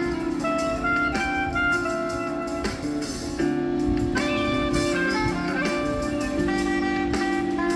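Background music: a mellow jazz piece with guitar and held melodic notes.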